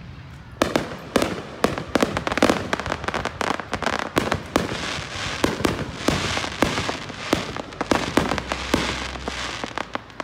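Aerial fireworks going off in a rapid barrage of sharp cracks and pops, starting about half a second in.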